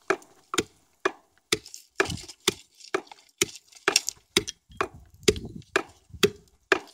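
Roasted coffee beans pounded in a Bedouin wooden coffee mortar with a wooden pestle: sharp knocks about two a second, with extra strokes between, played as a rhythm rather than a plain beat. The knocking carries far and tells neighbouring camps that guests have come.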